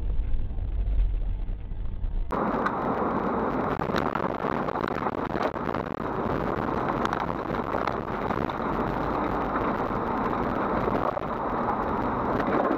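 A low rumble inside a car, then about two seconds in a sudden switch to a loud, steady rushing noise with scattered clicks: a car driving through a blizzard, with wind and road noise.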